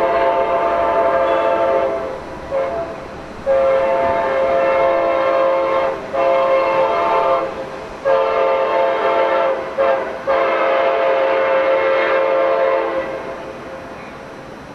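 A locomotive air horn sounding several notes at once in a series of long blasts, with a couple of short ones between them. The last blast dies away shortly before the end.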